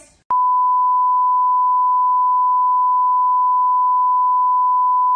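Steady 1 kHz test-tone beep, the pure sine tone that goes with TV colour bars, cutting in abruptly a fraction of a second in and held unbroken at one pitch and level.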